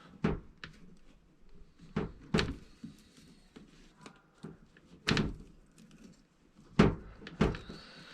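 Wiring-harness connectors being unplugged from a washing machine's control board and reseated to cure a suspected poor connection. About six separate sharp clicks and knocks, the loudest near the end.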